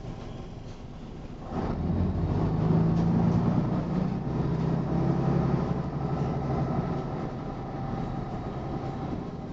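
Scania diesel engine of an MCW Metro-Scania single-deck bus, heard from inside the saloon while the bus is under way. It grows clearly louder about one and a half seconds in as it takes up load, then runs on steadily.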